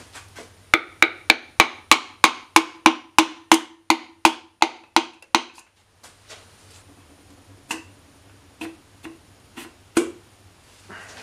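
A piston being tapped down through a ring compressor into its cylinder bore in a BMW M54B25 engine block: a steady run of about fifteen sharp taps, roughly three a second, each with a brief ring. A few lighter, scattered knocks follow.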